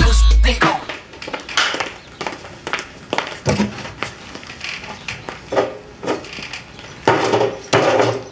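A short burst of bass-heavy theme music stops within the first second. Then dishes and cutlery clink and knock on a kitchen table in scattered, irregular strokes, busier near the end.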